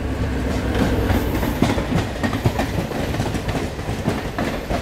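A moving passenger train running over the track: a steady low rumble with irregular clicks and clacks as the wheels cross rail joints and points.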